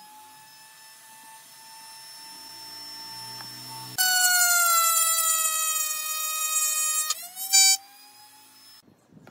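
Router spinning a straight bit in a router table, a steady high whine. About four seconds in it gets much louder and the pitch sags as the bit cuts a notch through the board held in a box-joint jig; the pitch climbs back near seven seconds as the cut finishes, and the motor winds down near the end.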